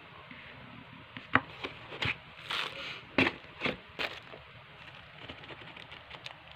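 Paper bag and the loose papers inside it rustling and crinkling with a kitten inside, in a run of short crackles between about one and four seconds in, with fainter rustling otherwise.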